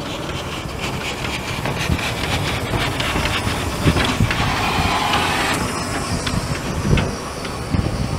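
Narrow-gauge steam train, GWR Vale of Rheidol 2-6-2T No. 8 hauling open carriages, rolling slowly past with a steady rumble and a few sharp wheel knocks. A hiss rises in the middle and cuts off suddenly.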